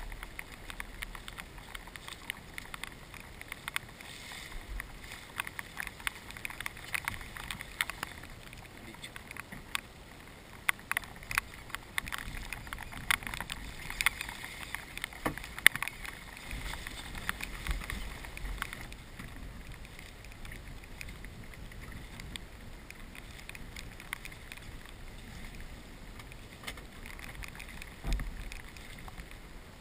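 Raindrops tapping irregularly on the waterproof camera housing and the aluminium boat, many small ticks a second over a faint steady hiss.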